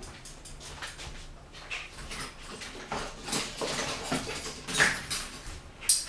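Irregular clinks and knocks of kitchen utensils and dishes being handled, with the sharpest clacks near the end.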